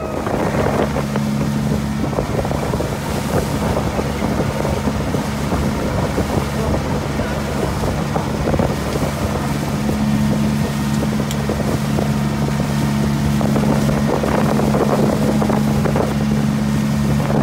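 Engine of a motorized outrigger boat running at a steady drone while underway, with wind buffeting the microphone.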